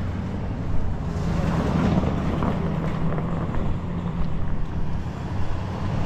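An engine running steadily with a low, even hum, and wind buffeting the microphone, most in the first half.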